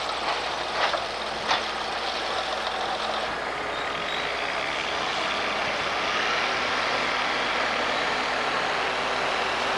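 Heavy construction machinery and trucks running steadily, with sharp clanks about a second in.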